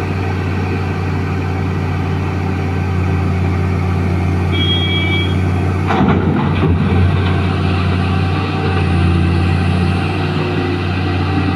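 Heavy diesel engines of a hydraulic mining excavator and a dump truck running steadily. About six seconds in, a crash and rattle as boulders drop from the bucket into the dumper's steel bed, preceded by a brief high tone.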